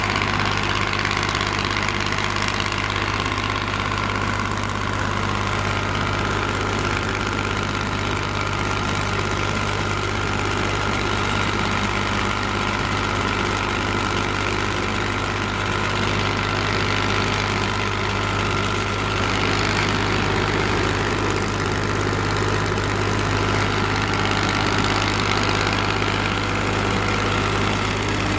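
Steady drone of heavy equipment running together: a Komatsu PC210 excavator's diesel engine and a star screening plant working through a load of soil.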